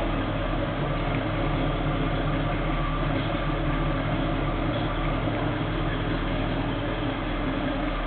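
1967 Chevelle SS 396's big-block V8 idling steadily, heard from the rear of the car at the exhaust.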